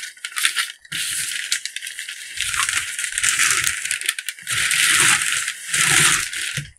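Brown kraft packing paper rustling and crumpling as it is pulled back by hand from a cardboard box, then bubble wrap crinkling. The sound is a dense, crackly rustle in long stretches, with brief pauses about a second in and again about four seconds in.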